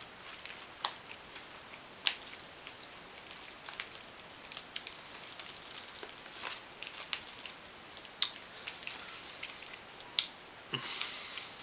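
Rap Snacks Honey Jalapeño potato chips crunched while being chewed: scattered sharp crunches at irregular intervals, with a longer crackling patch near the end.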